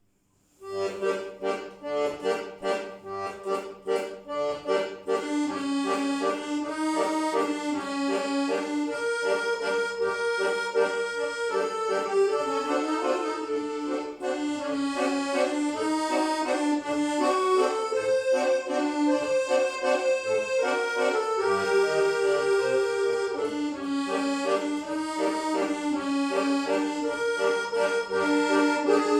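Solo accordion playing a melody over chords, opening with a few seconds of short, detached chords before settling into sustained, legato playing.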